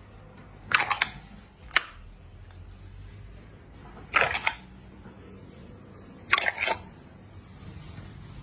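Slime being squished and pressed by hand, giving three short crackly bursts of small popping clicks about two seconds apart, with a single sharp click after the first.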